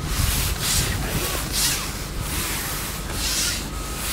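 Rubbing and rustling noise close to the microphone, a rasping hiss that swells in irregular surges about once a second.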